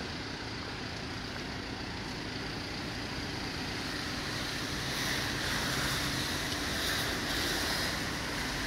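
Steady rumbling noise of passing traffic that grows louder and brighter about five seconds in, as a vehicle passes.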